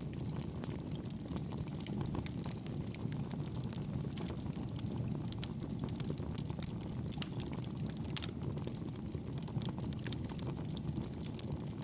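Fire crackling in a fireplace: a steady low rumble of flames with frequent small pops and snaps.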